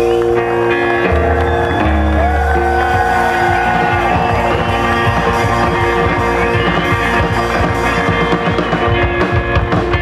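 A live country/rockabilly band playing: electric and acoustic guitars over upright bass and drums, with a steady beat and some sliding guitar notes.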